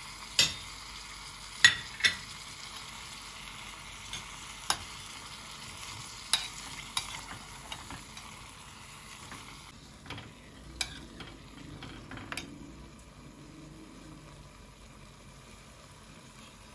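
Food sizzling as it fries in a pan and is stirred, a spoon or spatula knocking sharply against the pan every second or two. The sizzle grows fainter about ten seconds in.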